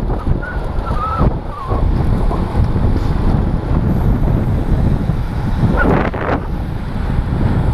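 Wind buffeting the microphone of a helmet-mounted GoPro in an open skeleton housing at racing speed on a road bicycle, a steady low rumble. A few brief high squeaks sound in the first couple of seconds.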